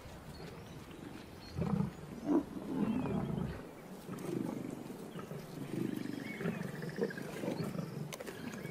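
Male lions growling over a freshly killed buffalo calf as they maul and feed on it: a string of low, irregular growls, the loudest about two seconds in.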